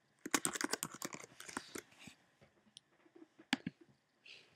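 Typing on a computer keyboard: a quick run of keystrokes over the first two seconds, spelling out a short word, then a few separate clicks.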